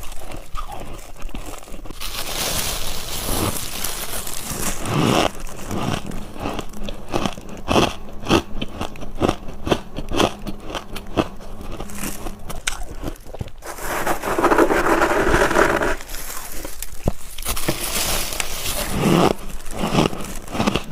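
Close-miked bites and chewing of freezer ice: a long run of sharp, crunching strokes, closely spaced in the middle, between stretches of denser crackling and grinding.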